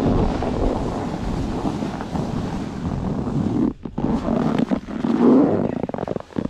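Snowboard sliding and scraping over packed snow, with wind rushing over the microphone; the noise briefly drops out twice.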